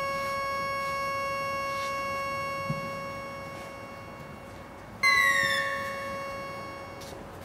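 Electronic synthesizer drone of several steady high tones. About five seconds in, a louder bright tone sets in suddenly and slides downward, then fades.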